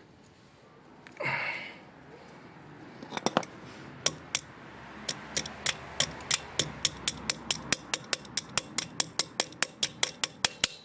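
Hand-tool work on a car's rear wheel hub: a short rustle, then a steady run of sharp metallic clicks, about four or five a second, coming slightly faster toward the end.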